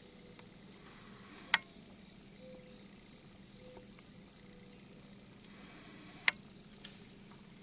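Steady high-pitched chorus of insects chirring in the background. Two sharp clicks, about a second and a half in and again about six seconds in, stand out as the loudest sounds.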